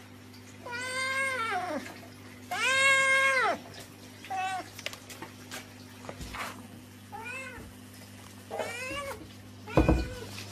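A hairless cat meowing about six times: two long, drawn-out meows that rise and fall in pitch in the first few seconds, then shorter meows. A sharp thump near the end is the loudest sound.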